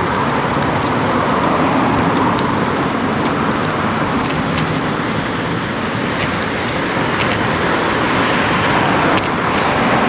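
Steady rushing noise of a bicycle ride, picked up by a camera clamped to the handlebars, with scattered small clicks and rattles.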